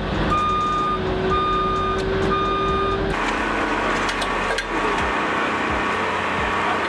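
Backup alarm of heavy construction equipment beeping three times, about a second apart, over a running engine. About three seconds in the beeping cuts off abruptly and steady engine and machinery noise continues.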